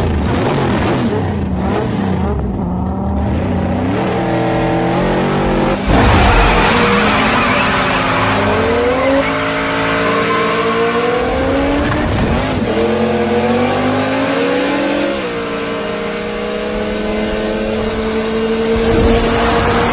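Two cars, a Toyota Supra and a Dodge Charger, racing flat out from a standing start, their engines climbing in pitch and dropping back at each upshift several times through the gears, ending with one long, slowly rising note.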